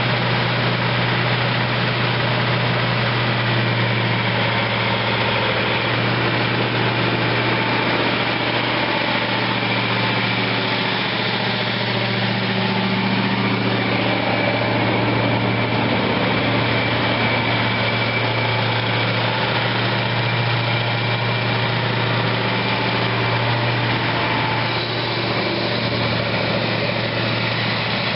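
Cummins 903 eight-cylinder turbo diesel of a Ford FW60 four-wheel-drive tractor running steadily at a constant engine speed, with no revving.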